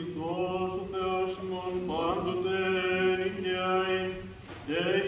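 Men's voices singing Byzantine chant: a melody moving over a steady held drone (the ison), with a short break near the end before the singing starts again.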